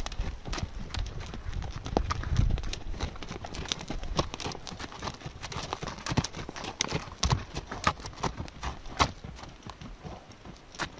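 Hooves of several wild horses walking over dry, dusty ground close by: a scatter of irregular hoof knocks and thuds.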